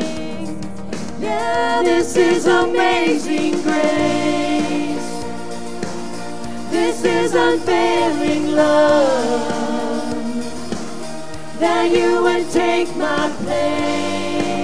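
Live worship band: several voices singing together over keyboard and guitars, in sung phrases of a few seconds with short breaks between.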